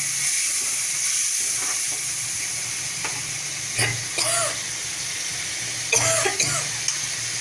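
Tomato-onion masala sizzling in hot oil in a metal kadhai, with a little water just added, giving a steady hiss. Two brief louder noises stand out about four and six seconds in.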